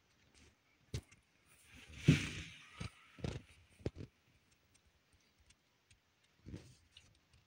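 Handling noise: a scattering of small clicks and knocks, the loudest a thump with a brief rustle about two seconds in.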